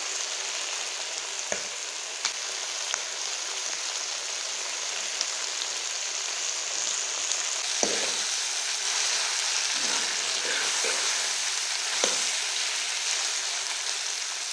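Chicken pieces sizzling steadily as they fry in a kadai. A few short scrapes and knocks of a ladle stirring the meat come from about eight seconds in.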